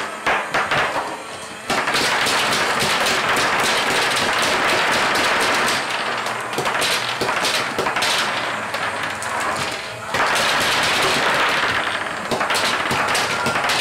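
Rapid clatter of B-Daman toy shooters firing plastic marbles, which strike the target tower and one another and bounce across a wooden tabletop. A few separate shots come first, then a dense, continuous rattle of hits from about two seconds in, easing briefly near the end and then resuming.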